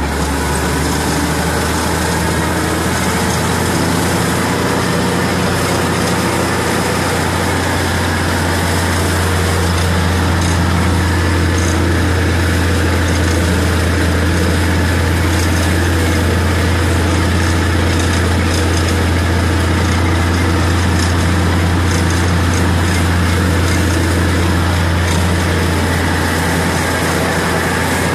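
Tractor engine running steadily under load, heard from inside the cab, driving a tractor-mounted four-row cotton stalk shredder through the field: a loud, even low hum with a whirring rush over it and scattered light ticks.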